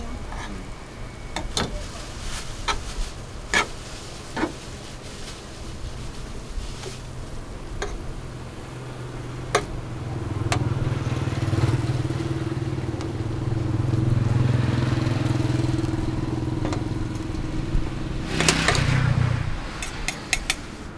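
Metal serrated tongs click and tap as sandwich fillings are laid into a baguette. An engine runs steadily through the middle, rising about nine seconds in and cutting off suddenly near the end. Just before it stops there is a short metallic scrape of a spatula.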